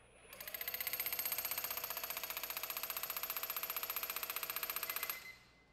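Milwaukee 2717 cordless SDS Max rotary hammer hammering a bit into a steel dyno wedge with the trigger feathered to keep the hitting power low: a rapid, steady train of blows over the motor's whine, which rises briefly as it spins up and then holds. It runs about five seconds and stops abruptly.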